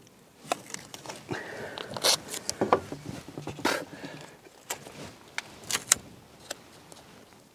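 Masking tape being handled on a painting board: a run of small taps, rubs and short scrapes as the tape is pressed down along the board's edge.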